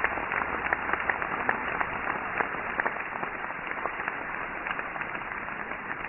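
Audience applauding: a steady patter of many hands clapping in a hall, easing off slightly toward the end.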